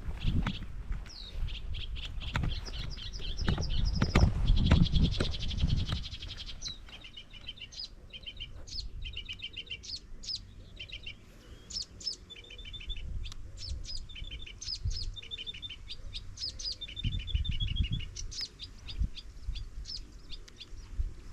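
Small songbirds singing, short trilled phrases of quickly repeated chirps, one after another. A low rumble sits under the first few seconds.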